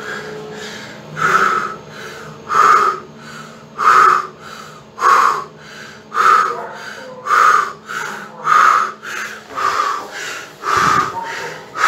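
Kone EcoDisc lift car travelling down, with a faint steady hum that stops about two-thirds of the way through as the car arrives. Over it, a loud harsh sound repeats evenly about every second.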